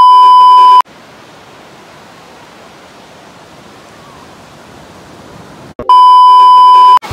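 Two loud electronic beeps, each a steady high tone lasting about a second, the first at the start and the second about six seconds in, with a steady hiss between them.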